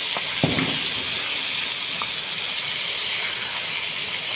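Chopped tomatoes, green capsicum and peas sizzling in an aluminium pan on a portable gas stove, a steady hiss, with a wooden spatula knocking against the pan about half a second in.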